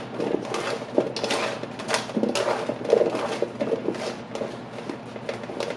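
Raw cauliflower florets being tossed by hand in olive oil on a metal sheet pan: an irregular run of soft clicks, knocks and rustling as the florets tumble and slide over the pan.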